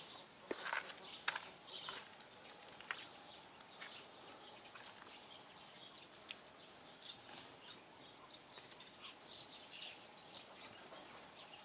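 Faint outdoor background with small birds chirping here and there, and a few sharp knocks in the first second or so.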